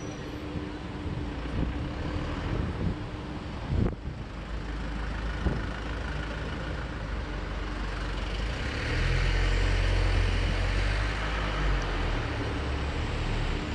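Street traffic noise with a steady hiss, a sharp knock about four seconds in, and a louder deep rumble in the second half, as of a heavy vehicle such as a truck or bus going past.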